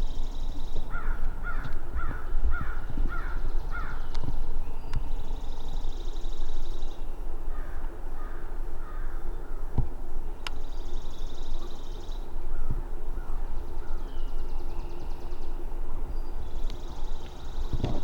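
Birds calling: a run of about six harsh, falling calls, two or three a second, with shorter runs later. A high buzzing trill repeats every few seconds over it.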